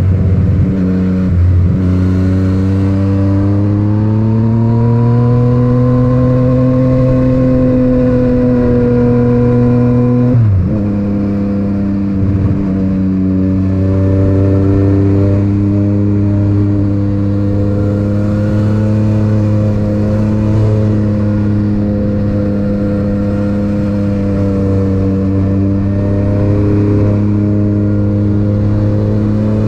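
Yamaha MT-09's inline three-cylinder engine through an Akrapovic titanium exhaust, running steadily under load while being ridden. The pitch climbs slowly over the first several seconds, drops briefly about ten seconds in and picks up again, then holds steady.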